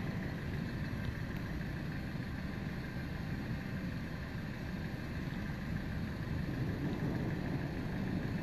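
Steady low rumble of roadside background noise with no distinct events.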